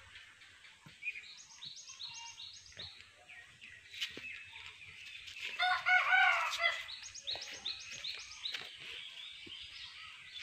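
A rooster crowing once, a call of about a second a little over halfway through, with small birds chirping in quick runs before and after.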